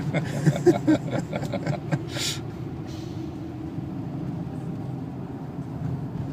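Steady engine and road noise inside the cabin of a Renault with a 2.0-litre turbo diesel, driving slowly. A brief hiss comes about two seconds in.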